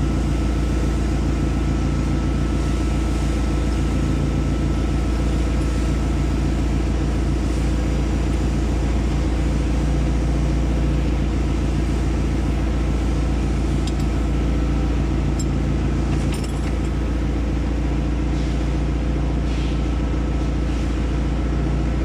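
Mitsubishi L300 engine idling steadily, running after a top overhaul with freshly set valve clearances.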